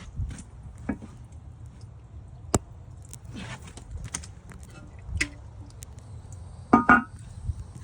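Scattered clicks and knocks of hands working around the toilet, over a low steady hum, with two loud knocks in quick succession near the end that ring briefly.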